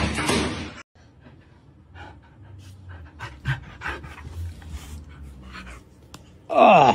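A loud burst of noise cuts off under a second in. Then a husky pants in short quick breaths, and near the end gives a short, loud whining cry that falls steeply in pitch.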